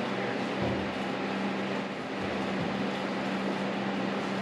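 Steady machine hum: an even rushing noise with a constant low drone underneath.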